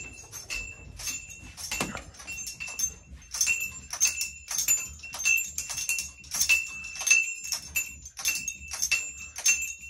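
Metal objects clinking and ringing again and again at the same high pitch, a few irregular strikes a second, rattled by the earthquake shaking. One short falling squeak comes about two seconds in.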